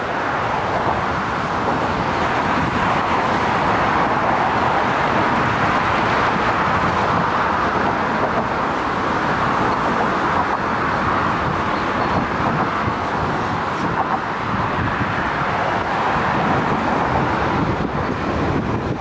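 Steady rush of passing electric commuter trains on the adjacent track mixed with road traffic, a loud, even noise with a few faint clicks about two-thirds of the way in.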